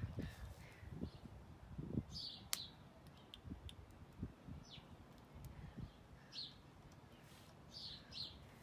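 Faint handling thumps and a few small clicks as wire connectors are pushed onto the scooter's battery terminals, with a bird chirping now and then.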